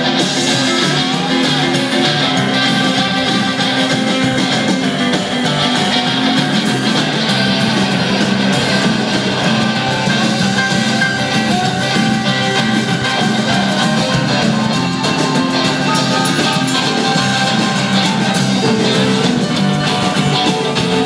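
Live rockabilly band playing an instrumental passage on upright bass, electric guitar, drums and keyboard, at a steady, even loudness throughout.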